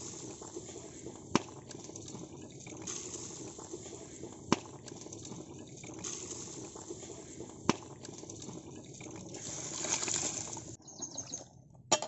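Spiced water boiling hard in a large aluminium cooking pot, a steady bubbling hiss, with three single sharp clicks spread through it. The sound swells about ten seconds in, then drops away suddenly, and a few bird chirps follow near the end.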